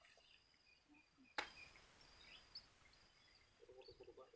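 Near silence with faint high chirps and a steady faint high-pitched hiss, broken by one sharp click about a second and a half in.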